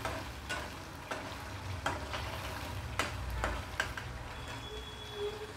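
Schezwan chutney (soaked-chilli and garlic paste) sizzling in oil in a stainless steel pan while a steel spatula stirs it continuously, with a few sharp knocks and scrapes of the spatula against the pan.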